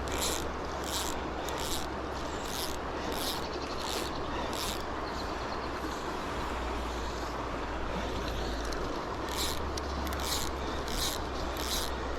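Steady rush of river water, with rhythmic swishing about one and a half times a second from the angler's waders as he walks. The swishing pauses in the middle and starts again.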